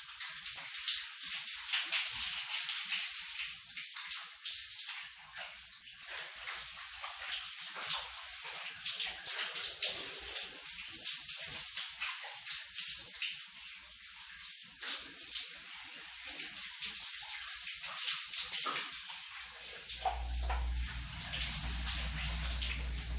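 Shower spray running, a steady hiss of water with many small splashes as it hits the body and floor. About twenty seconds in, a low steady hum starts beneath it.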